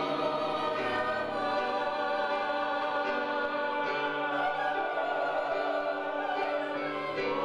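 A musical-theatre ensemble singing in choir-like sustained chords, several voices holding long notes together with slow changes of pitch.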